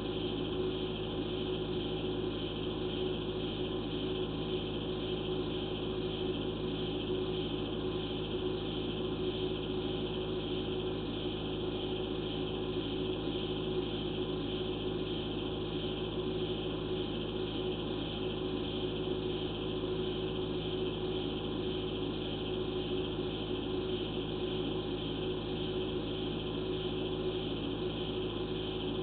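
Steady hum and hiss on the sewer inspection camera system's audio feed, unchanging throughout, with no other sounds.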